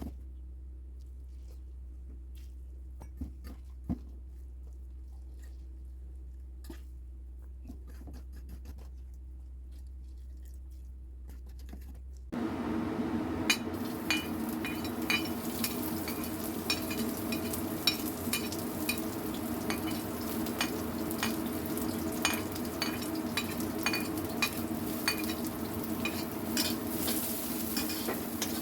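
A low hum with a few faint knocks, then about twelve seconds in a sudden steady sizzling starts as sliced chillies, shallots and garlic go into hot oil in a pan. A spatula clinks and scrapes against the pan as they are stirred.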